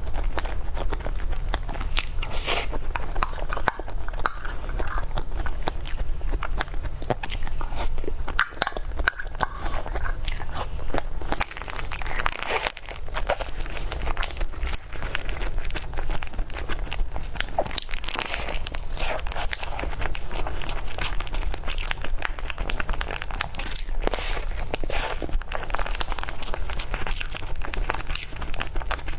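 Close-miked eating: biting and chewing, with a steady stream of small crackles and wrapper crinkling.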